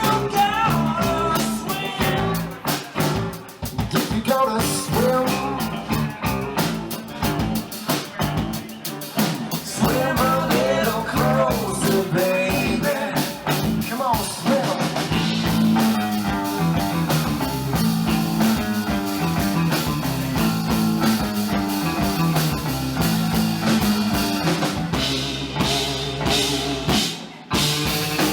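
Live band playing an americana/blues-rock song, with drum kit and guitar, and a brief break in the playing just before the end.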